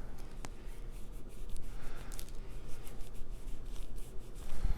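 Shirt fabric rubbing over a phone's glass, a soft scratchy wiping with small handling ticks.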